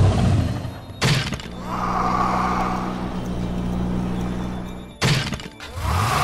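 Cartoon sound effects with spooky music: a sudden crash about a second in and another near the end, with a steady low hum between them.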